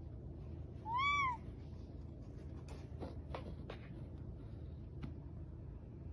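A cat meows once, a short call that rises then falls in pitch, over steady background noise. A few faint ticks follow.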